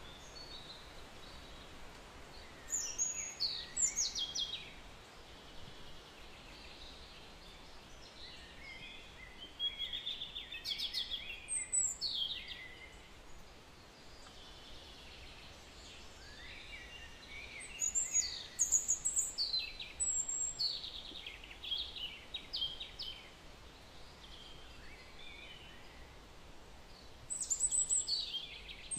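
Birds singing, their quick chirping phrases coming in bursts every several seconds over a steady faint hiss.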